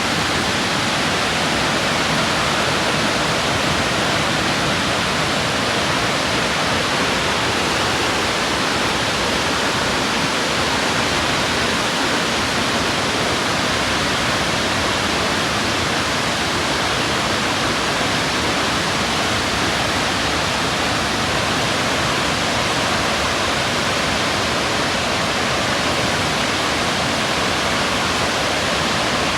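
Burney Falls, a 129-foot waterfall, pouring steadily: an even, unbroken rush of falling water.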